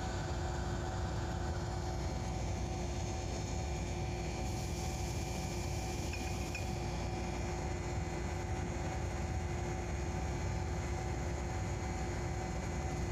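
Steady running noise heard from inside a diesel locomotive's cab while the train runs along the line: a constant engine drone with a few steady hum tones over a low wheel-and-track rumble.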